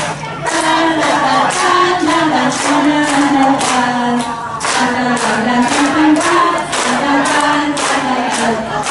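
A group of voices singing a melody together over a steady beat of sharp hits, about two a second.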